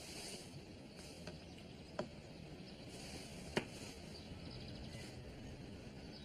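Faint steady room hiss with two sharp clicks about a second and a half apart, and a softer one before them: chess pieces set down on the board during a game.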